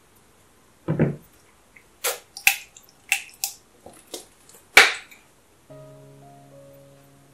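A squirt of tomato sauce from a squeeze bottle landing on cooked penne about a second in, then a run of sharp clicks and taps from the bottle and its cap. Soft sustained music notes come in near the end.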